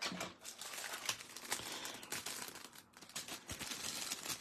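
Crinkling and rustling of action-figure packaging being handled, with many small irregular clicks.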